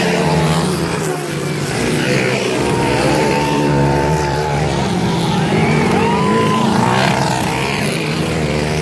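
Motocross dirt bike engines revving on a race track, their pitch rising and falling repeatedly as the bikes accelerate and back off.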